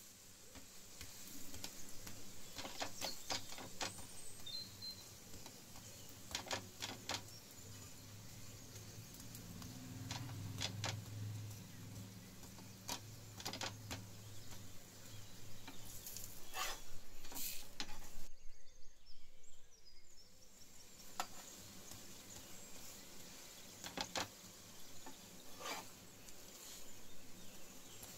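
A dal puri frying in oil on an iron tawa, with a steel spatula scraping and clinking on the pan in sharp, scattered taps. The sound drops out briefly about two-thirds of the way through.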